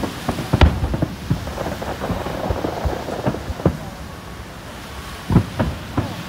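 Japanese aerial firework shells bursting overhead: a string of about a dozen booming bangs, the loudest about half a second in and another cluster near the end.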